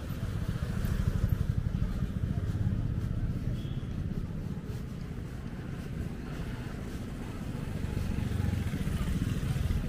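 Street ambience with a steady low rumble, and a motorcycle engine passing close near the end.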